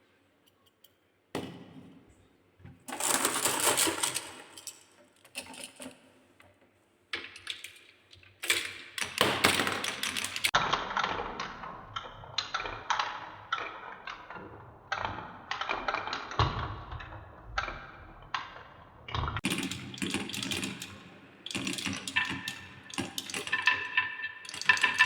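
Balls rolling and clattering down a wooden marble run: stretches of quick clacks and rattles that start and stop abruptly, with ringing tones joining in over the last few seconds.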